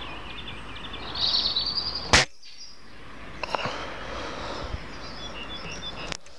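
A single shot from a .22 calibre rifle about two seconds in, a sharp crack that cuts off abruptly. Birds chirp before it, and a few small handling clicks follow.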